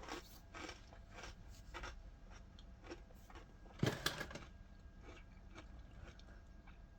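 Close chewing of dry, crunchy cereal pieces: irregular crunches, the loudest about four seconds in, then fainter chews.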